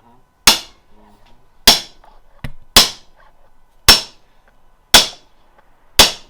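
Hammer blows on metal, six sharp ringing strikes at a steady pace of about one a second, driving a shift detent into a BMW ZF transmission case.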